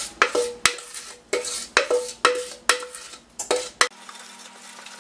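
A utensil stirring and scraping in a stainless steel mixing bowl as wet ingredients are combined into the dry flour-and-cocoa mix: repeated clinks against the metal, about two a second, most leaving a short ring from the bowl. The clinks stop about four seconds in.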